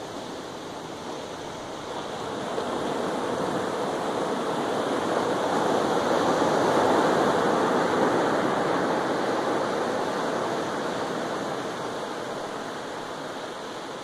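Pacific Ocean surf breaking and washing up a beach: a steady rush of water that swells to its loudest about halfway through as a wave runs up the shore, then slowly eases off.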